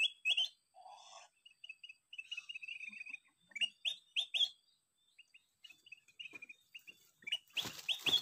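Small songbird chirping: repeated short rising chirps and a fast chattering run. Near the end a loud rustling, scraping noise takes over.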